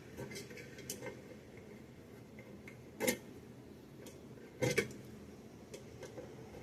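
Scattered small metallic clicks and clinks of the Gerber Dime multi-tool's pliers working a fitting to tighten it, with two louder clacks about three and about four and a half seconds in.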